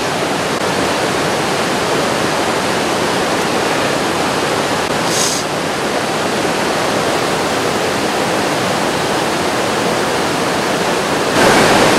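Whitewater rapids of a fast, rocky river rushing steadily, a constant loud wash of water.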